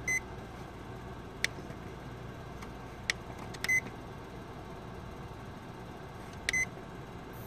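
Printer control-panel key beeps: three short high beeps a few seconds apart, near the start, about four seconds in and near the end, with a few faint button clicks between them, as the keys of a Ricoh/Lanier SP4510 operator panel are pressed in service mode. A low steady hum runs underneath.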